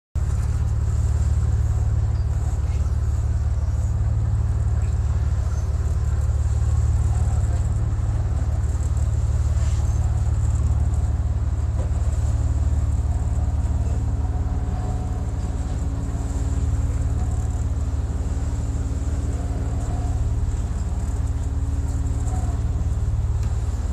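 Boat engine running steadily while trolling, a deep even drone heard from inside the wheelhouse. A faint steady hum joins it about halfway through.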